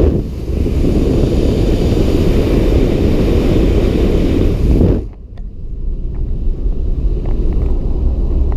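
Wind rushing over the microphone of a camera held out of a moving car's window, cutting off suddenly about five seconds in and leaving the lower, steady drone of road noise inside the car.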